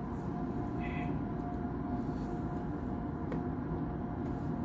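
Steady low background hum with a faint steady whine, and a single small click about three seconds in.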